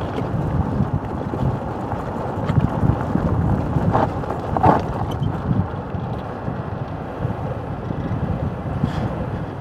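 Unpowered mountain cart coasting fast downhill: a steady rumble of its wheels on a gravel track with wind buffeting the microphone, and a couple of sharp rattles over bumps about halfway through.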